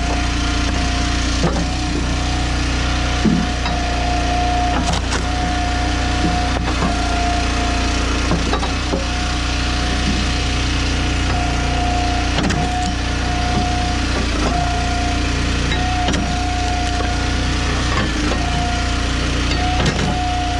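Engine-driven hydraulic log splitter running steadily, with a higher whine that comes and goes many times and scattered knocks and cracks of wood splitting.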